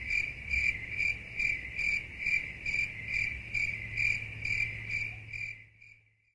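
Cricket chirping in an even, steady rhythm of about two to three chirps a second over a faint low hum, fading out near the end.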